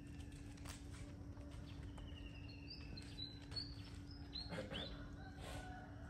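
Several birds chirping and whistling faintly, with short calls and quick downward-sweeping notes over a steady low hum and background noise.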